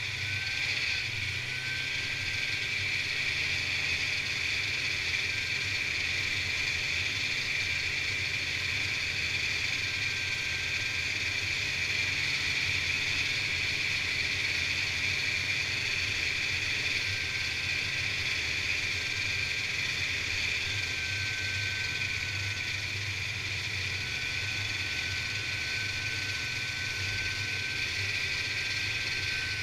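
Snowmobile running steadily along a trail, a constant engine and track drone heard from on the machine, with a thin high whine that comes and goes several times.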